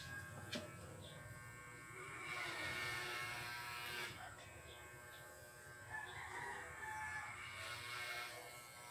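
Corded electric hair clipper running with a steady buzz while cutting hair.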